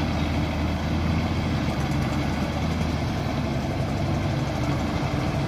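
Ford 6600 tractor's diesel engine running steadily under load, hauling a loaded trailer slowly up a slope in low gear.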